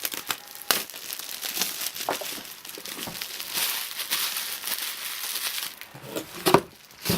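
Packaging of a new iPad 2 crinkling and rustling as it is handled and opened, with scattered clicks and taps and a sharp knock about six and a half seconds in.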